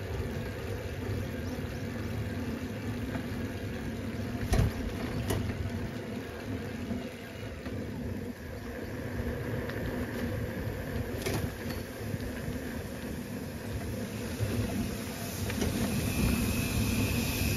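Steady rumble of a slow ride along a narrow paved road: tyres rolling and wind on the microphone, with a few sharp knocks or rattles, two about 4 to 5 seconds in and one about 11 seconds in. A faint high steady tone comes in near the end.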